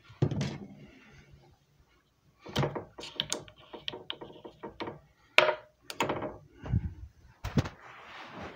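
Handling of a JFJ Easy Pro disc repair machine: a string of separate plastic clicks and knocks as its lid is opened and a DVD is lifted out, with no motor running.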